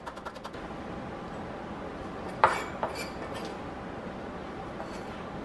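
Kitchen knife chopping cilantro on a wooden cutting board, a few quick strokes at the start. About two and a half seconds in there is a single sharp knock and then two lighter clinks as a small glass bowl and the knife are handled on the board.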